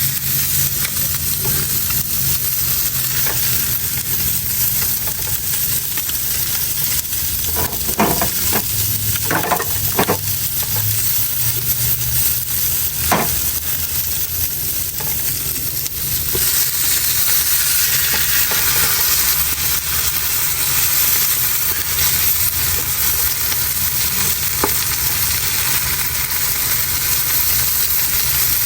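Salmon sizzling as it cooks over the heat, a steady frying hiss. A few light clicks or knocks come in the middle, and the sizzle grows louder and brighter about halfway through.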